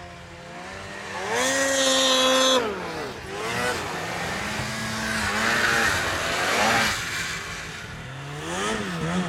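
Snowmobile engines revving hard as a sled accelerates past: the pitch climbs about a second in, holds high for a second or so, then falls away, followed by more rising and falling revs and another burst of throttle near the end.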